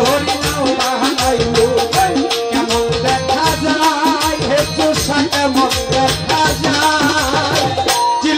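Bengali baul folk music: a wavering melody over percussion keeping a steady beat.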